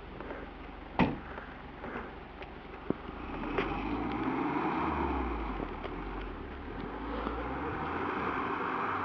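Mitsubishi Pajero engine running under load as the 4x4 ploughs through deep snow. It grows louder about three seconds in, with its pitch rising and falling. A sharp click comes about a second in.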